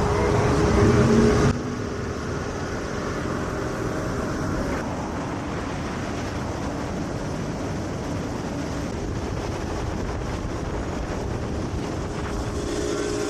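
Boat engine running with a steady hum, which drops off abruptly about a second and a half in; after that an even rushing of wind and water as the boat moves along.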